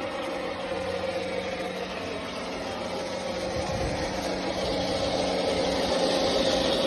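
A 1/16-scale radio-controlled Tiger I tank driving over grass. Its steady mechanical running sound grows louder as it approaches and passes close by.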